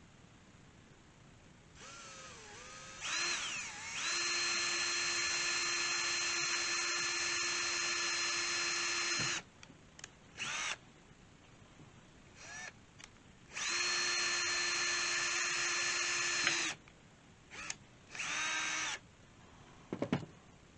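Electric drill spinning up with a rising whine, then running steadily for about five seconds. A few short trigger blips follow, then a second run of about three seconds and one last short burst, as it drills a hole in the air rifle's stock for a sling mount.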